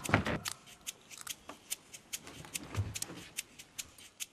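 Light, sharp ticking at a fairly steady pace of about four ticks a second.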